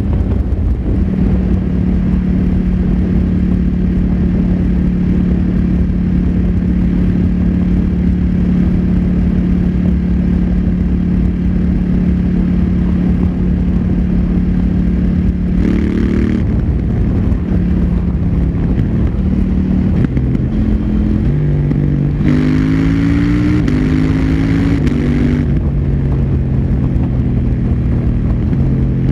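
KTM Duke 790's parallel-twin engine through its stock exhaust, running at a steady cruise with low wind and road rush. About sixteen seconds in the engine note drops, and in the last third it rises and steps in pitch several times.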